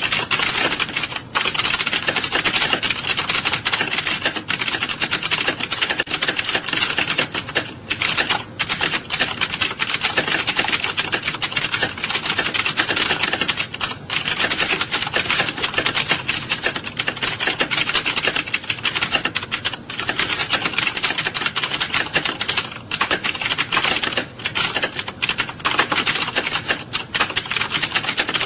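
A typing class full of students typing at once on computer keyboards: a dense, continuous clatter of overlapping keystrokes with only a few brief lulls.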